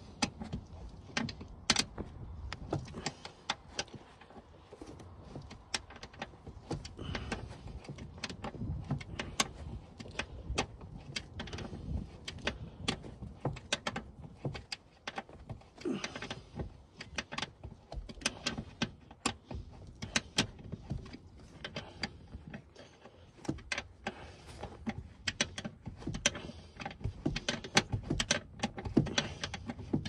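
Irregular sharp metallic clicks and light clanks of a hand tool working at a seatbelt anchor bolt, over a low rustle of handling. The clicks come thicker near the end.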